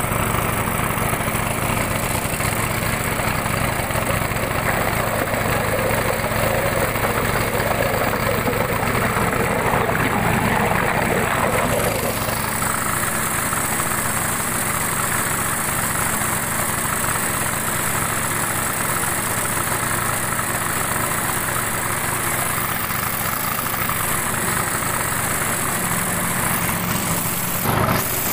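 Small engine of a wooden river boat (pompong) running steadily as it drives the boat along the river; its sound changes about twelve seconds in, and there is one brief knock near the end.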